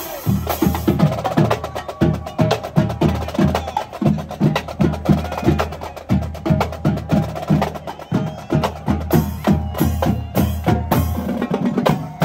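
Marching drumline of snare drums and multi-drum tenors playing a fast, rhythmic cadence over low drum hits.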